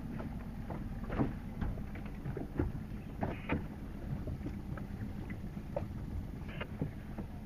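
Wind rumbling on the microphone, with water slapping and splashing irregularly against the hull of a small boat on a choppy sea.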